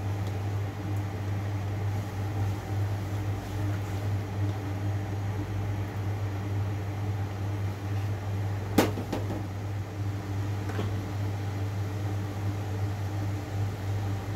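A steady low machine hum from a motor or fan, with one sharp click and a brief ring about nine seconds in.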